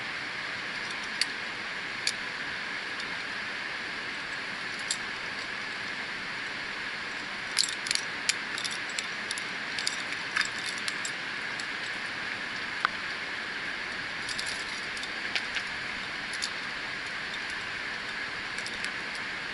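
Metal climbing carabiners and quickdraws on a harness gear rack clinking against each other as the climber moves, in scattered clicks with a busier run around the middle and another later on, over a steady background hiss.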